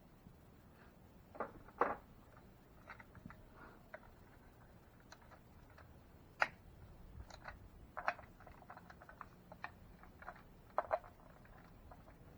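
Scattered light clicks and taps of hand tools and parts being handled while a Ford T19 transmission's cover is taken off, with the loudest about two seconds in, around six and a half and eight seconds, and near eleven seconds.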